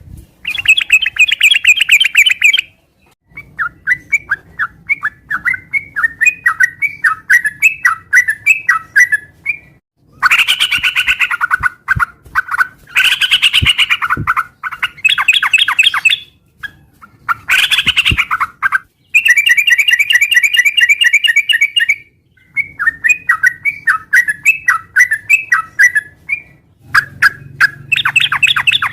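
Yellow-vented bulbul (trucukan) singing in repeated phrases of quick chattering notes, each one to three seconds long with short pauses between. A faint low hum sits under some of the phrases.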